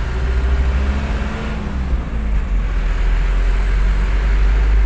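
Car driving slowly in a traffic jam: a steady low rumble of engine and tyre noise, heard from inside the car.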